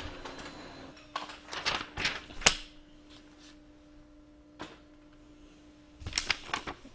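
Paper and desk-handling noises: short rustles and a few sharp clicks in two clusters, one a second or two in and another near the end, over a faint steady hum.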